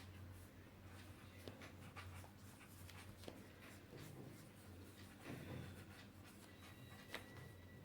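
Faint paintbrush strokes and light taps on paper, over a low steady hum.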